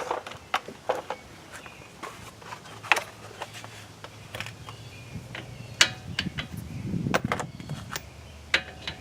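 Scattered clicks and knocks of hand tools and parts being handled while working on a truck's front brake and hub assembly, at irregular intervals, over a faint steady low hum.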